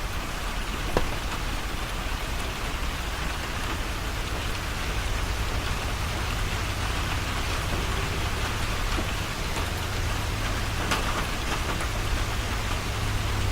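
Steady rain falling, an even hiss with a few faint drip-like taps. A low steady hum grows louder near the end.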